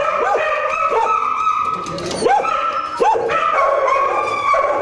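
Several dogs barking in kennel cages, the barks coming in quick succession and overlapping one another.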